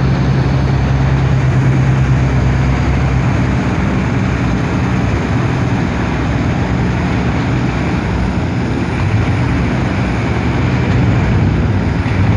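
Amphibious excavator's diesel engine running steadily.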